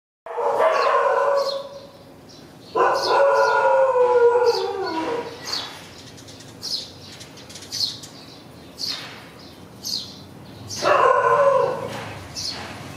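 Three long, drawn-out animal calls, the second sliding down in pitch at its end, with short high chirps about once a second in between.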